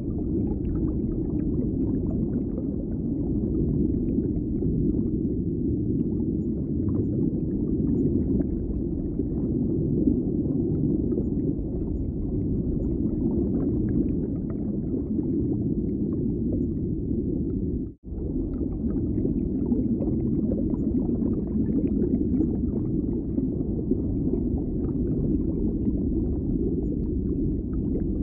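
Steady low rumbling ambient noise with no clear events in it. It cuts out for an instant about eighteen seconds in, then resumes unchanged.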